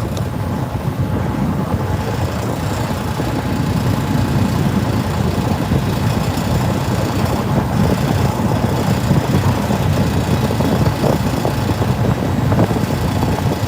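Fishing boat's engine running steadily while under way, a dense low drone.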